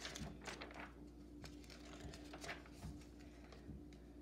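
Faint paper rustling and soft taps of a picture book's pages being turned and the book handled, busiest in the first second, over a steady low hum.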